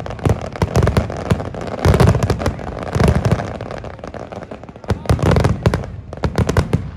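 Fireworks display: a rapid, uneven string of sharp crackling reports mixed with deep booms of shells bursting, coming in heavy clusters every second or so.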